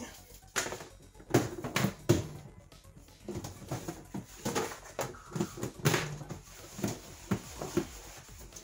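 Dishes being washed by hand in a stainless steel sink: a plastic bowl and lid knocking and rubbed with a sponge. Background music with a steady beat plays along.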